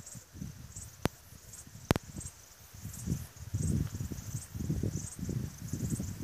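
Crickets chirping in high, rhythmic pulses about twice a second over a gusty low rumble of wind on the microphone, which grows stronger in the second half. Two sharp clicks come about one and two seconds in.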